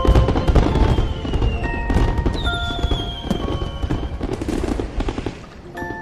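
Fireworks bursting and crackling, with dull booms and a rapid scatter of sharp pops, over background music with sustained notes.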